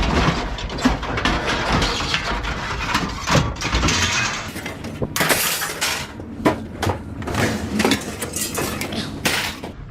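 Scrap metal pieces clattering and clanking as they are handled and tossed into piles during sorting, with irregular knocks throughout and louder crashes about five seconds in and near the end.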